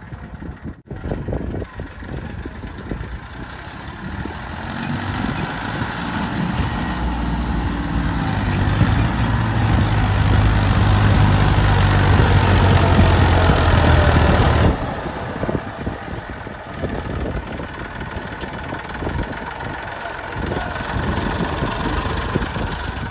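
Heavy diesel engine running, growing louder from about four seconds in and then dropping suddenly to a quieter steady run about two-thirds of the way through.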